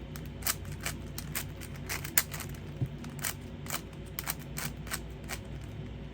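Plastic clicking and clacking of a 5x5 Rubik's cube being turned quickly by hand, with irregular sharp clicks a few times a second.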